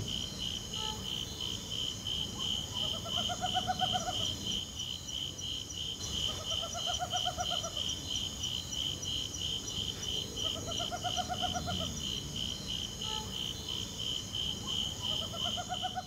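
An owl calling: a short trill of fast notes that rises and falls, four times about every four seconds, over a cricket's steady pulsing chirp.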